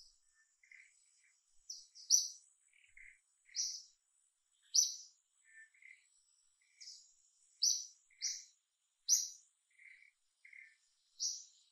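Small birds chirping: short, high chirps repeating about once a second, with softer, lower chirps in between, over a faint steady high-pitched tone.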